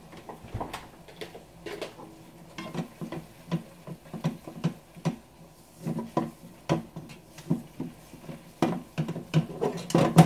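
Spatula stirring sauce in a frying pan: a run of short knocks and scrapes against the pan, roughly one or two a second.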